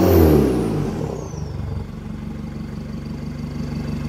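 Nissan Navara pickup's engine heard at its aftermarket dual-tip exhaust, the revs falling away after a blip and settling into a steady idle about two seconds in.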